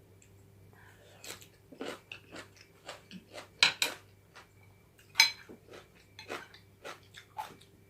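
Close-up chewing of a mouthful of grilled chicken bones, with a run of sharp crunches and clicks. The loudest crunches come about three and a half and five seconds in.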